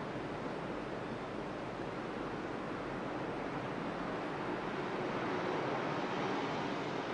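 A steady rushing noise with no distinct tones, swelling a little in the second half.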